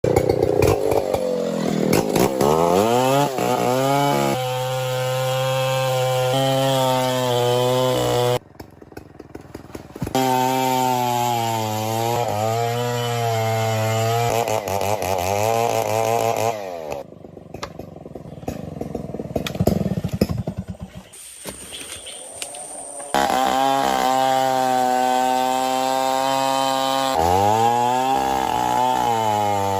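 Two-stroke chainsaw engine revving up and down several times and held steady at high speed in between. Twice it falls away abruptly to a much quieter stretch before coming back up to full speed.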